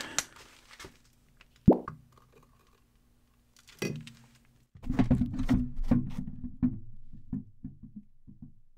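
Plastisol being forced from a hand-held metal lure injector into a 3D printed grub mold, sputtering and popping in a rapid, irregular run of low stutters through the second half. There is a single sharp click about two seconds in.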